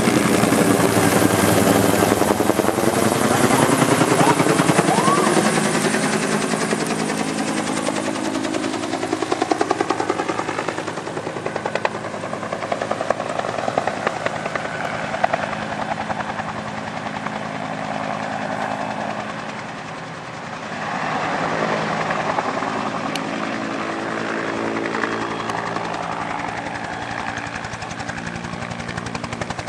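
Fire-department helicopter flying past with the rapid chop of its main rotor and the whine of its turbine, the pitch dropping early on as it passes close by. It fades a little about two-thirds of the way through, then grows louder again.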